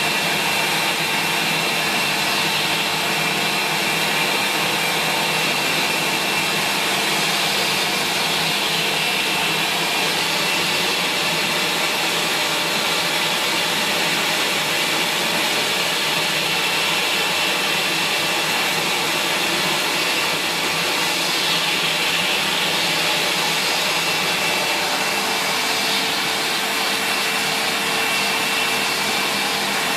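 Sanyo SCA-7AX upright bagged vacuum cleaner running steadily, a constant high whine over a broad rushing noise.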